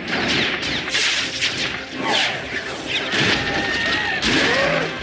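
Action-film fight sound effects: a dense run of crashes, booms and metallic impacts from the Hulkbuster armour and the Hulk fighting, with some sliding whines in between.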